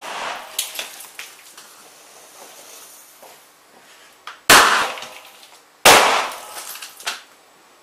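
Small explosive charges going off: a sharp crack with scattered crackling pops at the start, then two loud bangs about a second and a half apart, and a smaller bang near the end.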